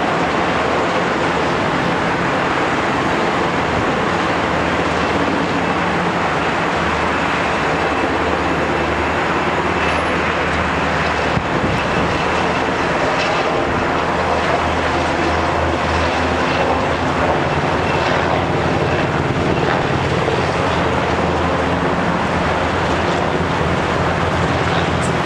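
Military helicopters flying low overhead: a steady rotor and engine drone, with the low throb swelling about halfway through.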